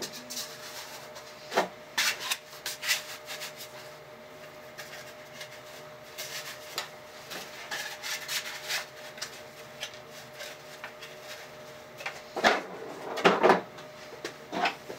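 Rustling, clicks and a few sharp knocks of 3D-printed plastic armour pieces being handled and fitted onto the body, busiest near the end. A faint steady hum runs underneath.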